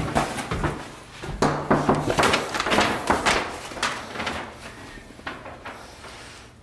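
A run of knocks and clunks from a house door being handled and opened, thinning out toward the end.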